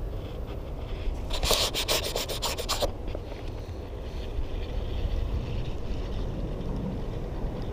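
Rubbing handling noise from a spinning rod and reel over a steady low rumble. About a second in there is a rapid run of sharp clicks lasting about a second and a half.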